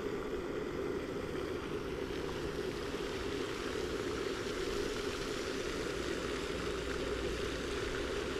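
A steady, even rushing noise that does not change.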